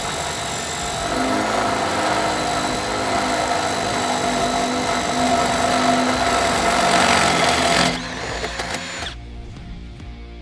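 Cordless drill with a Milwaukee carbide-tipped fiberglass bit boring through a fiberglass composite utility pole: a steady grinding whine that grows louder and stops sharply about eight seconds in as the bit breaks through. Background music continues after it.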